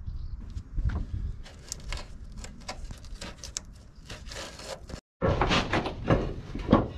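Scraping, clicking and clattering of old roof material (wooden battens, clay tiles and worn zinc flashing) being pulled apart by hand. After a short cut about five seconds in, louder, denser clattering and knocking.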